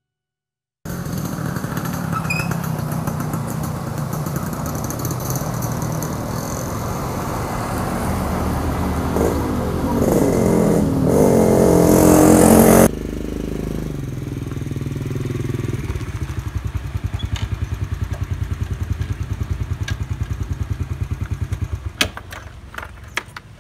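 Motorcycle engines. One engine runs and grows louder to a peak, then cuts off suddenly about halfway through. After that a small motorcycle engine idles steadily with an even pulse, and a few sharp clicks come near the end.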